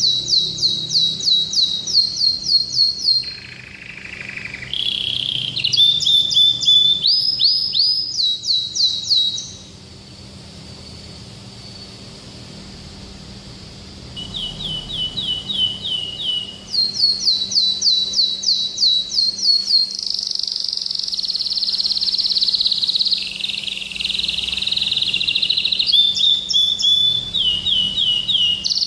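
Domestic canary singing: runs of rapid repeated high notes, each run held at one pitch before switching to another, with a brief lower run and a quieter pause about a third of the way in, then more runs and a fast rolling trill.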